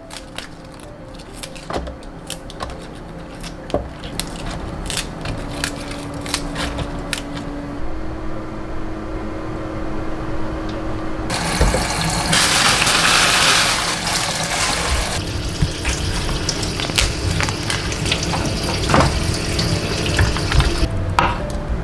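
Kitchen tap running into the sink for about four seconds in the middle, as spinach is rinsed in a plastic draining basket. Before and after it, light clicks and rustles of the leaves, the plastic bag and the basket being handled, over a low steady hum.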